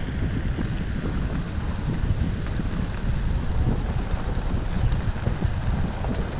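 Wind buffeting the microphone of a camera mounted outside a vehicle driving along a gravel road: a steady, gusty rush with a heavy low rumble.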